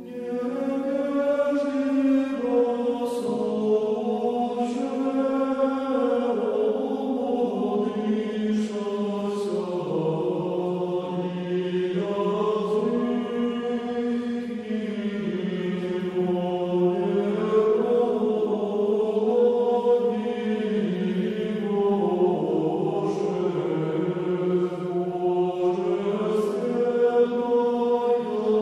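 Eastern Orthodox chant in Church Slavonic, sung by low men's voices in slow, long-held notes in several parts, as background music.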